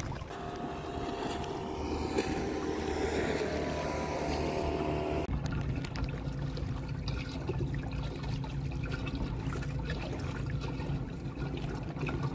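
Kayak's electric motor running with a steady hum, with water lapping and trickling against the hull. About five seconds in the sound changes abruptly to a lower hum.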